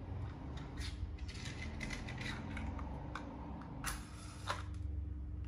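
A lighter being worked to light a tea light: a series of sharp clicks and scrapes, the loudest about four seconds in, over a steady low hum.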